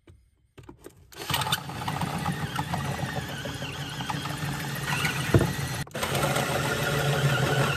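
Cordless drill running under load with a hole saw cutting through the van's double-layer steel floor, starting about a second in and cutting steadily, with a brief pause near the end before it bites again.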